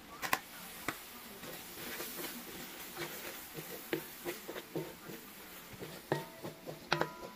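Light kitchen clatter: scattered knocks and clicks of utensils and cookware, with two short ringing clinks near the end.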